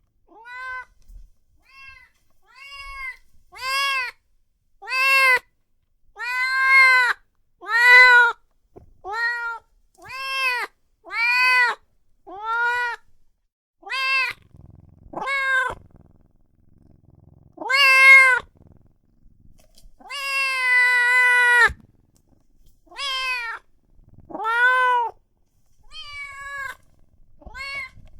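A newborn kitten crying with a long run of high-pitched mews, about one every second or so, each rising and then falling in pitch, with one longer drawn-out call about two-thirds of the way through. These are a very young kitten's distress calls for its mother.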